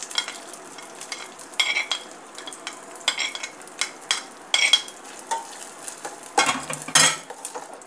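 Chopped dry fruits frying in hot ghee in a small steel pan, a faint steady sizzle, with a spoon scraping them off a china plate and a spatula stirring and clinking against the pan several times, most busily near the end.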